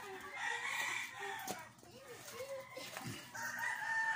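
Chickens clucking in short repeated calls, with a longer drawn-out call near the end.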